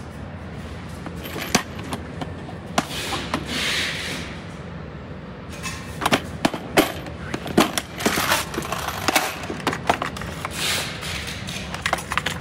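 Plastic toolbox being handled and opened: a run of sharp clicks and knocks as the case, lid and trays are moved, busiest in the middle of the stretch, over a steady low hum.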